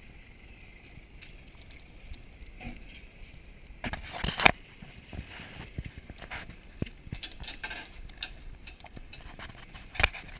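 Footsteps over loose rocks and dry leaf litter with camera handling knocks, loudest about four seconds in and again near the end.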